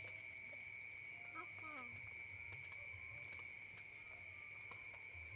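Insects chirring steadily: a continuous high trill with a second, pulsing chirp above it, about four pulses a second.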